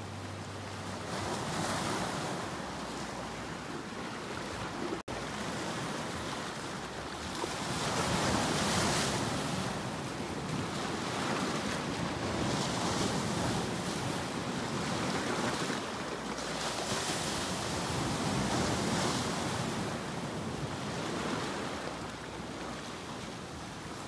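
Sea waves washing in and breaking over rocks along the shore, the surf swelling and falling back every few seconds. There is a split-second dropout about five seconds in.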